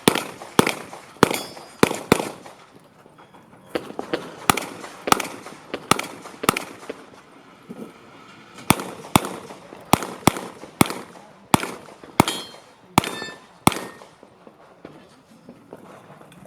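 Handgun shots fired in rapid strings during a practical shooting (IPSC) stage: about four quick shots, a pause, about five more, a longer pause, then about eight or nine more, each with a short echo.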